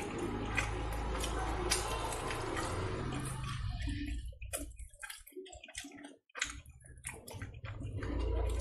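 Syrup-soaked jalebi being pulled apart by hand, with sticky, wet crackling and tearing. The crackle is dense for the first three seconds or so, then thins to separate small clicks.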